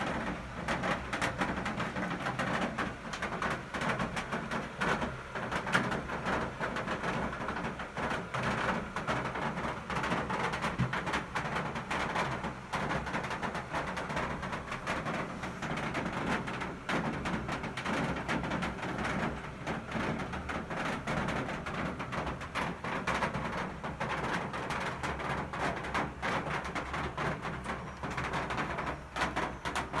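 Steady rain falling, a dense, even patter of drops hitting hard surfaces.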